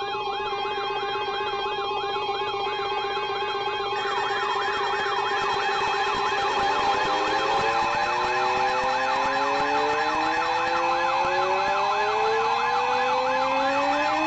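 Several Emergency Alert System attention tones from weather-radio and FM broadcasts sounding at once. Steady alarm tones play with a fast-warbling siren-like tone over them, and slow rising sweeps join about six seconds in. The tones signal the start of a new severe weather alert.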